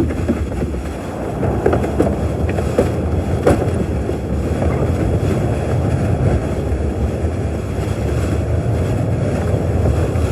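Tornado wind sound effect: a loud, steady, rumbling rush of wind, with a few sharp knocks in the first few seconds.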